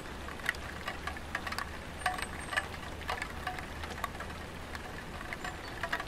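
Light rain falling on a tiled roof: irregular, scattered drips and taps of raindrops over a steady low rumble.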